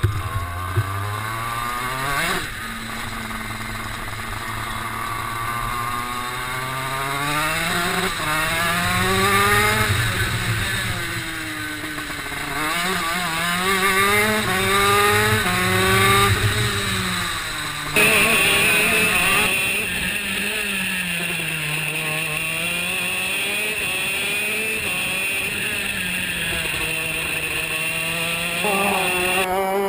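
Go-kart engine revving up and dropping back over and over as the kart accelerates out of corners and slows into them on a lap. About eighteen seconds in the sound changes abruptly to a different engine note with a steady high whine on top.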